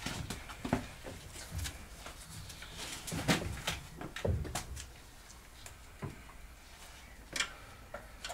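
Scattered clunks and clicks of tools and metal parts being handled around a car's engine bay, with the loudest knock about three seconds in.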